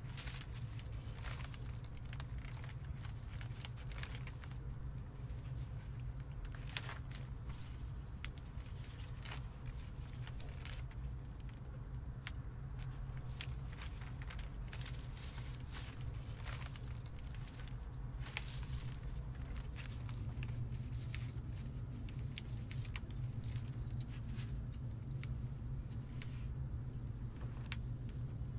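Soft, irregular scratching and rustling with small clicks as fingers twist rabbit fur into yucca cordage to make yarn, over a low steady hum.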